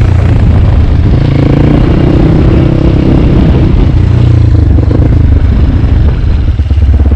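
CrossFire motorcycle engine running under changing throttle while ridden off-road over rough ground, its pitch rising and falling, with clattering from the bike. Near the end it dips briefly, then settles into a steadier, even beat.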